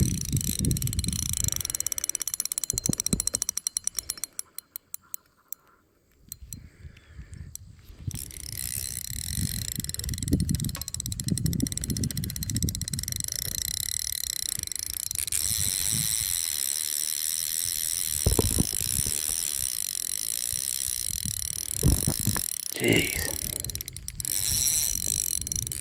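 Spinning reel working under a heavy fish: rapid drag clicking as line is pulled off, then a steady high buzz with reeling and handling knocks, fading out briefly partway through.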